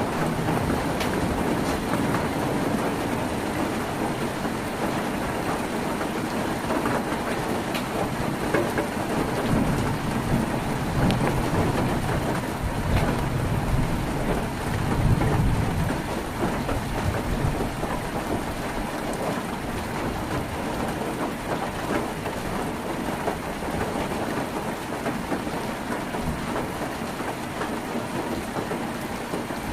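Heavy rain drumming on a tin roof: a steady dense hiss thick with the patter of drops. Low thunder rumbles swell under it about a third of the way in and again around the middle.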